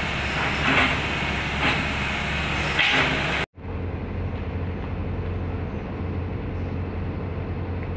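Heavy diesel engine of an excavator running steadily, with a rasping noise repeating about once a second. The sound cuts off abruptly about three and a half seconds in, and a steadier, deeper engine drone follows.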